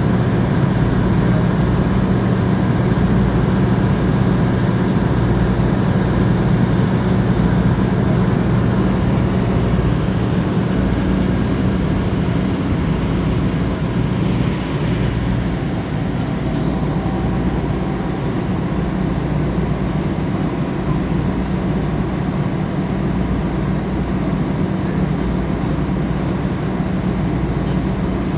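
Steady low engine drone from the portable power unit that drives the hydraulic rescue tools and the fire engine idling beside it.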